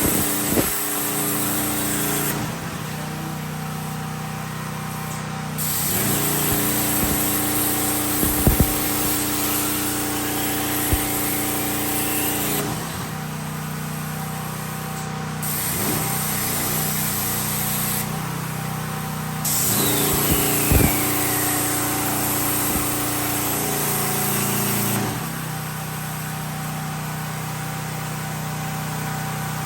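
Plasma torch of a CNC plasma table cutting steel, a loud hiss of arc and air that starts and stops about four times as cuts begin and end. Under it runs the steady hum of the generator engine powering it, with a couple of sharp clicks along the way.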